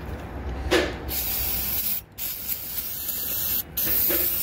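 Aerosol can of carburetor cleaner (2+2 Instant Gum Cutter) spraying into an engine's air intake duct to clean out oil. It hisses in three long bursts starting about a second in, with short breaks between them.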